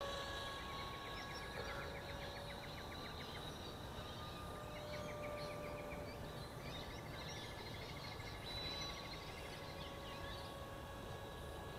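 Faint steady whine of a distant electric RC plane's motor and propeller, its pitch shifting slowly as it flies past, with birds chirping and trilling in the background.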